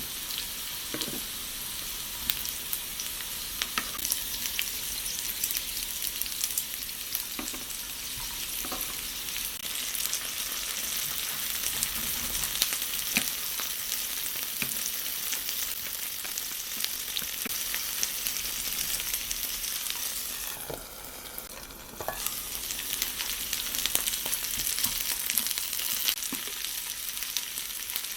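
Potatoes for German-style fried potatoes sizzling steadily in a mini frying pan over a solid-fuel pocket stove, with scattered sharp clicks and scrapes from the pan. The sizzle drops away for about a second some three-quarters of the way through.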